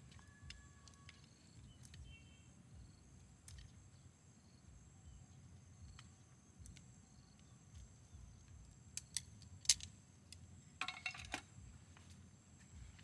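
Insects chirring steadily at a high pitch, with scattered small clicks and knocks that come in a louder cluster about nine to eleven seconds in.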